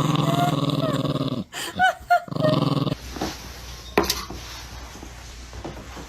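A dog growling in two long stretches with a few short high yelps between them, then quieter with a few light clicks.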